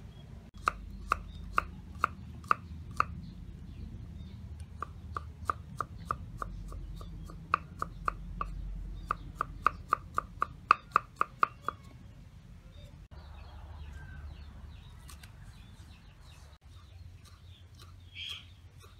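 Large knife chopping on a round wooden cutting board, sharp knocks. About two a second at first, then a quicker run of three to four a second, with softer strokes after about twelve seconds.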